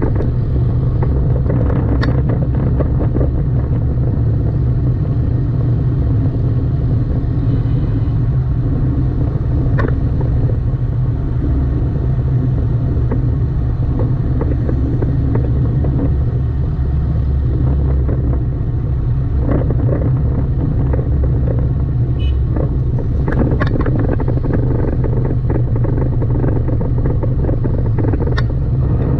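Car driving on city streets: a steady low rumble of engine and road noise, broken by a few brief sharp clicks and knocks.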